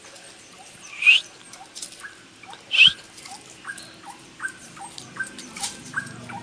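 Animal calls: two loud, sharp squawks about a second and a half apart, then a run of short, regular squeaks, about two or three a second.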